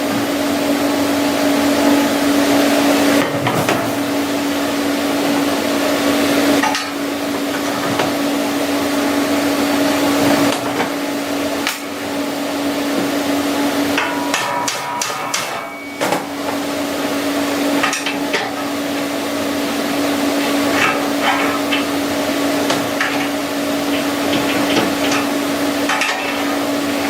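Steel parts of a welding cart being knocked and tapped into place, with scattered metallic clicks and knocks. A steady machine hum runs underneath.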